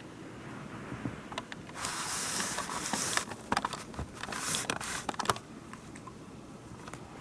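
N gauge model train running past on the track: a rush of wheel and motor noise with a run of sharp, quick clicks, loudest between about two and five seconds in, then fading back to low background.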